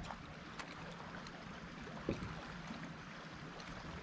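Water lapping gently against a bass boat's hull over a faint steady low hum, with one short knock about two seconds in.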